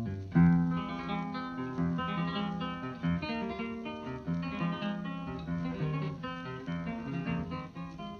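Acoustic guitar music, plucked and strummed in a flamenco-like style, with a busy run of notes.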